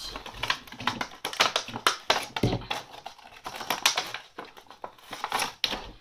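Clear plastic packaging crinkling and clicking as hands pull plastic spools of glitter ribbon out of it: a quick, uneven run of crackles and taps, with a dull thump about two and a half seconds in.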